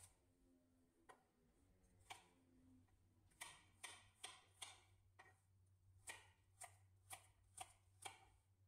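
Kitchen knife cutting a carrot on a wooden cutting board: a series of short, sharp knocks as the blade meets the board, about one a second at first, then quicker, about two a second, from about three seconds in. A faint steady low hum runs underneath.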